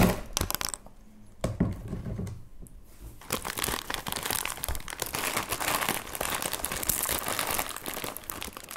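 Crinkling of a Doritos foil chip bag being handled, with some tearing: a sharp crackle at the very start and scattered crinkles, then dense, steady crinkling from about three seconds in.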